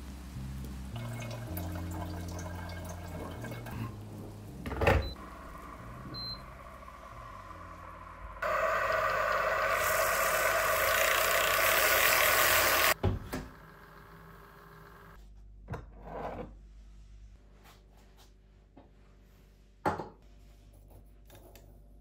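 Electric milk frother whisking milk: a loud, steady whir for about four and a half seconds that cuts off abruptly. Before it there is a knock and a short beep, and after it light clicks and a sharp clink.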